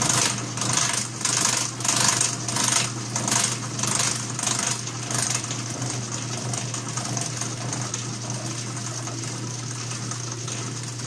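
Atlas horizontal milling machine cutting a slot in a stainless steel piston valve with a slotting cutter. There is a steady motor hum, and the cut pulses about one and a half times a second. About halfway through, the pulsing dies away, leaving the mill running more evenly.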